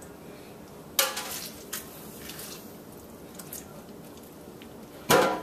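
A lemon half squeezed by hand over fish in a ceramic baking dish: a few soft squishing and dripping sounds over quiet kitchen room tone. There is a sharper sound about a second in and a louder, abrupt one near the end.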